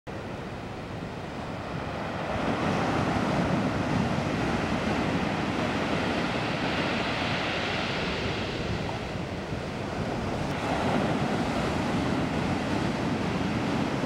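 Heavy swell breaking onto a shingle beach: a continuous rush of surf that fades in over the first couple of seconds, then swells and eases as successive waves crash and wash up the stones.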